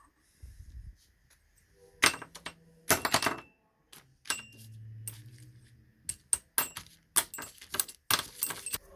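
Small metal parts and tools clinking and clattering as they are handled: a run of sharp clicks and knocks in clusters, with a short low hum about halfway through.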